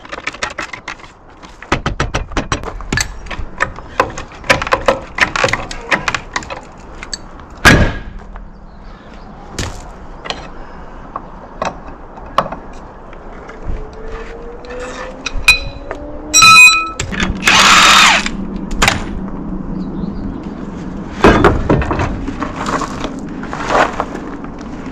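Irregular series of sharp knocks, clunks and cracks, with a loud burst of hiss about seventeen seconds in and a steady low hum from then on.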